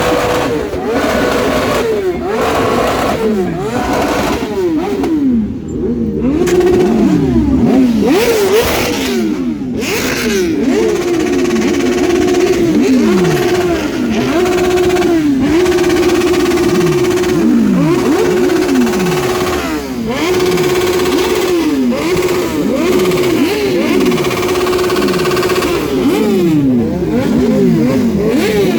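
Sport motorcycle engines revved hard and repeatedly while standing, each rev rising quickly and falling back, about one a second. In the second half several revs are held steady at high revs for a second or two before dropping.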